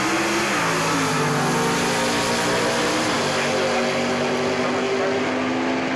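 V8 of a first-generation Chevrolet Camaro drag car at full throttle on a quarter-mile pass. The engine note steps down about a second in and again about three seconds in as the stick-shift car changes gear.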